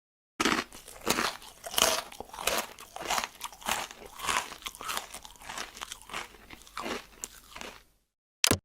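Crunching and chewing with irregular crackles for about seven and a half seconds, then stopping, followed by one short burst of the same sound just before the end.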